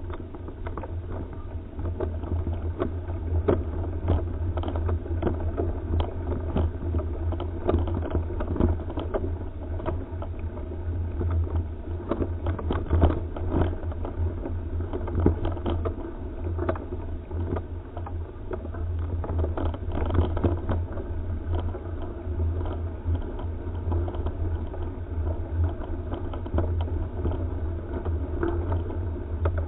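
A mountain bike ridden over a bumpy dirt forest trail, heard through a helmet camera's microphone: a steady low rumble with frequent rattles and knocks as the bike and camera jolt over the ground.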